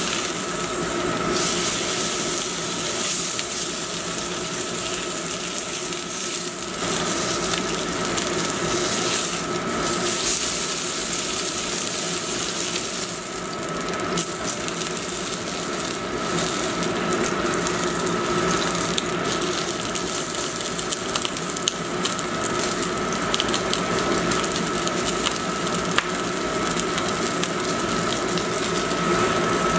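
A striploin steak searing in a hot cast-iron skillet: steady sizzling with scattered crackles and pops, over a faint steady hum.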